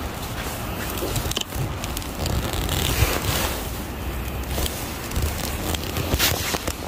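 Wind noise on the phone's microphone, a steady low rumble, with a few brief knocks.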